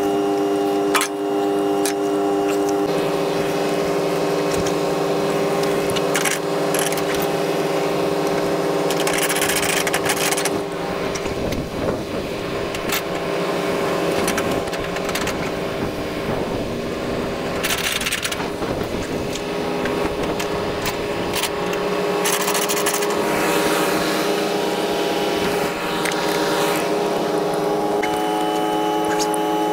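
Heavy truck's engine running steadily, its pitch stepping about three seconds in and again near the end, with a few brief bursts of hiss.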